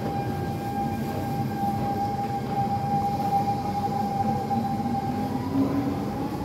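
SMRT C651 metro train pulling away from the platform, its Siemens GTO-VVVF traction equipment giving a steady high whine over the rumble of the train. Near the end a lower motor tone rises in pitch as the train picks up speed.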